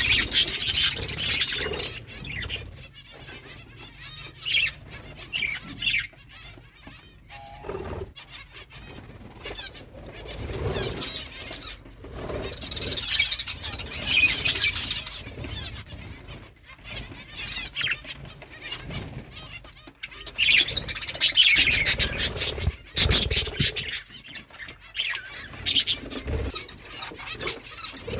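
Pet budgerigars chirping and chattering in irregular bursts, mixed with wing flapping and quick clicky runs.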